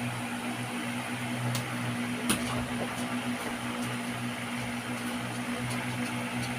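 Steady low mechanical hum, with one sharp click a little over two seconds in.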